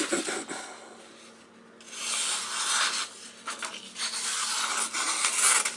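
Spyderco Mule Team 18 fixed blade slicing through a sheet of paper. The hissy, scratchy cut runs in several strokes from about two seconds in and is loudest near the end: a clean slice from a very sharp edge. A brief rustle of the paper comes at the very start.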